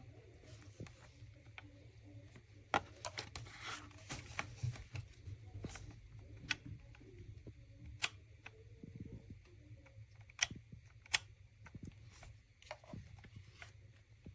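Scattered light clicks and taps of objects being handled, a few sharper ones standing out, over a faint low hum.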